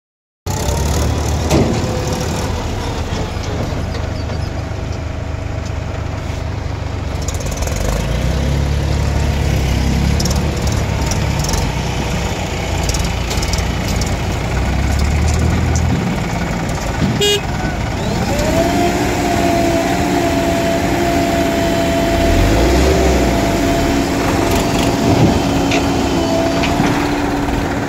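Diesel engines of farm tractors and a JCB backhoe loader running steadily at a soil-loading site, with a heavy low engine note throughout. About two-thirds of the way in a steady high tone with lower tones beneath it comes in and holds.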